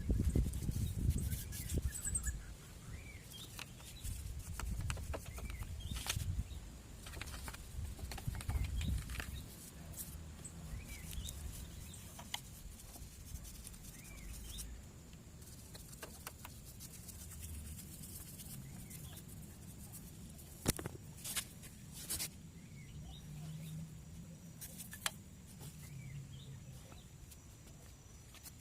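Paintbrush rubbing a wet cleaning mix onto a motorcycle engine's outer casing in soft strokes, louder in the first ten seconds or so and quieter after, with a few sharp clicks about two-thirds of the way through.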